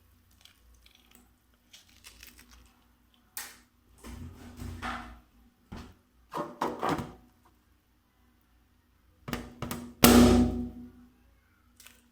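A balloon popping with a sharp, loud bang about ten seconds in, ringing briefly in the room. Before it come quieter knocks and rubbing sounds, including a sharp click just before the pop.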